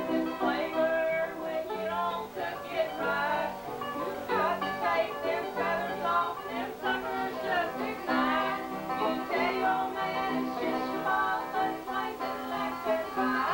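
Banjo and acoustic guitar playing a country-bluegrass tune, with women's voices singing along.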